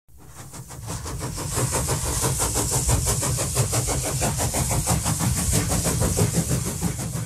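A mechanical sound like an engine running: an even, fast pulsing over a low rumble and a high hiss, fading in over the first second or so.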